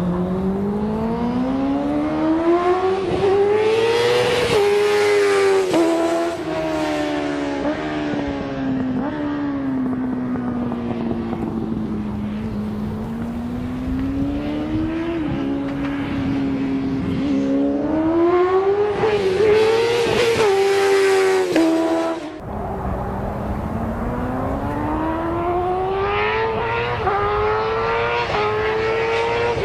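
Motorcycle engine on a race track, accelerating hard through the gears with short dips in pitch at each upshift, then easing off and slowing before pulling hard again. About twenty-two seconds in the throttle snaps shut and the sound drops sharply, then the engine climbs through the gears once more.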